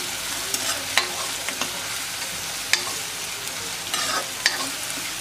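Chopped onion, green chillies and curry leaves sizzling in hot oil in a kadhai while a steel ladle stirs them, with sharp scrapes and clinks of the ladle against the pan every second or so.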